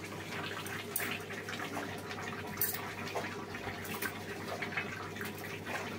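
Chicken simmering in its own released water in a steel kadai over a gas burner: a steady watery hiss and bubbling, with several light clicks of a small spoon as salt is scooped in.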